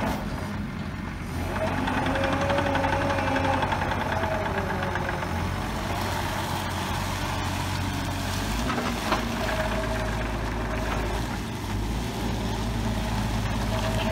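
Bobcat E55 mini excavator's diesel engine running steadily while the hydraulics slew the upper structure around, with a mid-pitched whine that comes and goes. A single sharp click about nine seconds in.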